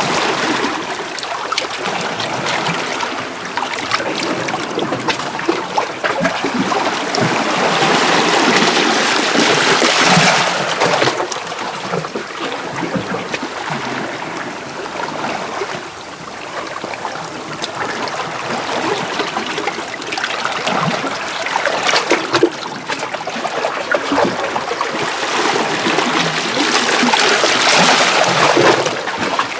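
Small sea waves washing in and out over shoreline rocks, with water trickling and splashing. The wash swells about a third of the way in and again near the end.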